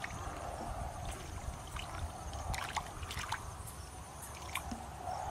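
Shallow muddy water sloshing and splashing as hands grope through the mud, with scattered small splashes and drips over a steady low rumble.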